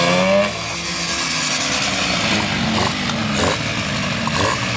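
Small Suzuki motorcycle engine revving up in the first half second, then dropping back and idling, with four quick throttle blips in the second half.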